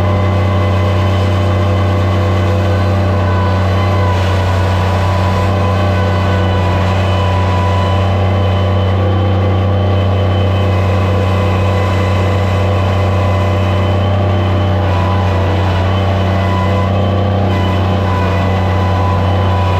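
Skid steer loader's engine running steadily at an even speed, with a strong low hum.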